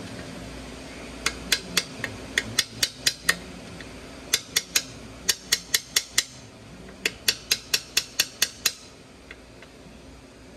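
Small hammer tapping a metal punch at a motorcycle frame's steering head, in four quick runs of sharp metallic taps, about four or five a second, with short pauses between: a part being driven into place, a little at a time.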